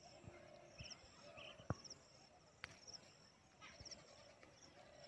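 Near silence, with faint high chirping trills repeating every second or so. A few soft taps come from handling the pigeon and string, and there is one sharp click about two and a half seconds in.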